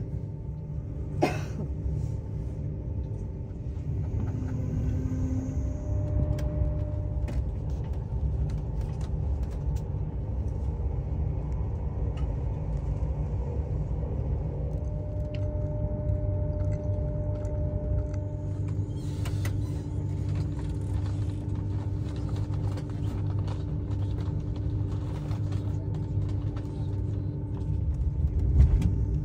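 High-speed train running: a steady low rumble with a few faint steady tones above it and scattered small ticks and rattles. A sharp click comes about a second in, and a louder bump near the end.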